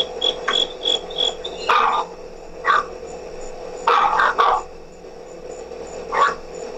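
Dogs barking in short, sharp barks about once a second or so, with a quick run of barks about four seconds in, recorded by an outdoor security camera. A cricket chirps steadily in a high, even pulse behind them, loudest at the start.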